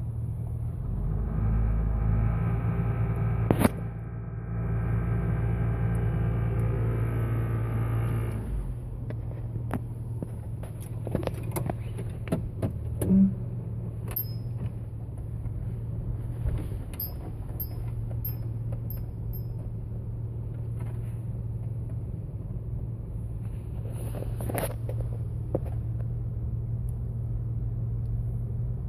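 Jeep Wrangler TJ's 4.0-litre inline-six running at low RPM in gear, with a buzzing drone and rumble for the first eight seconds or so, then settling to a steadier lower hum with scattered clicks. It is the low-RPM buzzing vibration that shows only in Drive and Reverse and goes away at higher RPM; its source is unknown.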